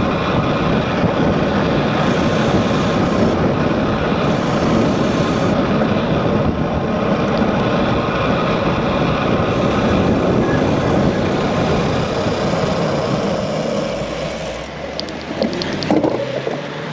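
Wind buffeting the microphone of a GoPro mounted on a road bike descending fast: a loud, steady rush. It eases near the end, where a few short clicks and a knock come through.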